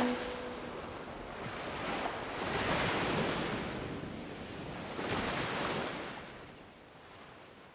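Surf of sea waves washing in: an even hiss that swells and ebbs twice and then fades out.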